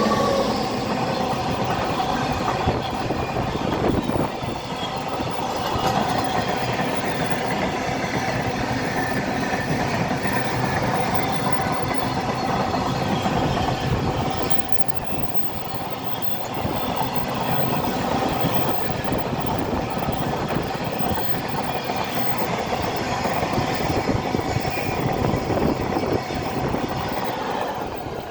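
Long goods train running past, its wagons rolling steadily along the track in one continuous loud rumble, dipping briefly about halfway.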